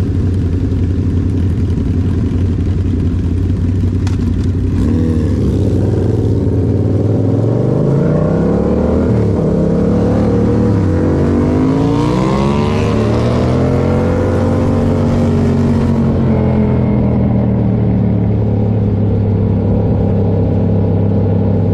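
Yamaha MT-07's 689 cc parallel-twin engine breathing through a Toce aftermarket exhaust while the bike is ridden. The engine pitch holds steady at first, rises and falls repeatedly from about five seconds in, then settles steadier near the end.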